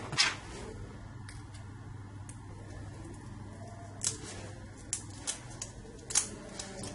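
Sheet of OCA (optically clear adhesive) film being handled: about five sharp clicks and crinkles of its plastic liner, over a steady low hum.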